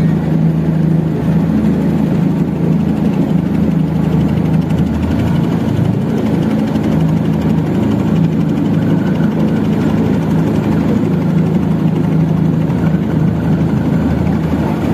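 Motorboat engine running steadily at a constant pitch.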